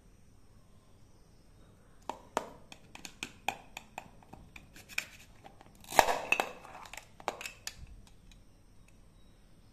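Plastic toy knife clicking and tapping against a toy plastic pineapple and plastic cutting board, a string of sharp clicks from about two seconds in. About six seconds in comes a short rasping tear as the velcro pads holding the two halves pull apart.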